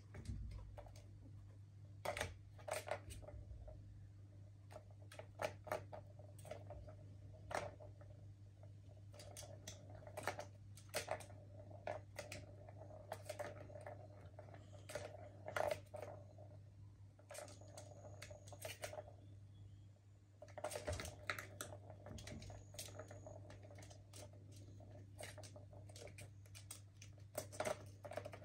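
Plastic ball rolling around the track of a yellow tiered cat ball tower, with a rumbling roll and many irregular clicks and rattles as kittens bat it and it knocks against the plastic.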